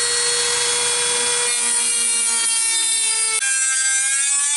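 Small Dremel-type rotary tool with an abrasive cut-off wheel, whining at high speed as it cuts through a rusted bolt on a steel exhaust clamp. The pitch sags about halfway through as the wheel bites into the bolt, shifts abruptly at about three and a half seconds, and then climbs again.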